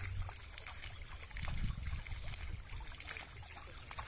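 Shallow water splashing and trickling as a cast net is hauled in by its rope, over a low rumble that swells about a second and a half in.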